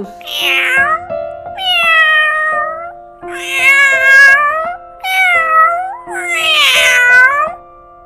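Domestic cat meowing repeatedly: about five long meows, each bending in pitch, over steady background music.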